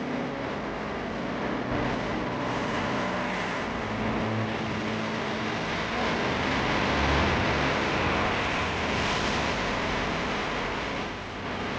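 Street traffic on a rainy road: a steady hiss of tyres on wet tarmac, with a vehicle swelling past around seven to ten seconds in.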